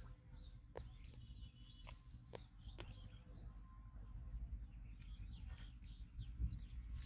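Faint bird chirps and calls over a steady low rumble, including one short held high note a little after a second in, with a few sharp clicks and a dull low thump near the end.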